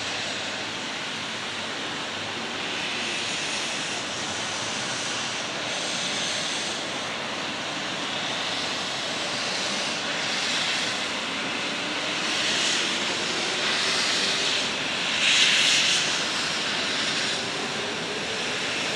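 Steam locomotive C61 20 hissing and exhausting steam as it moves slowly, a steady rushing noise with several louder surges, the strongest about fifteen seconds in.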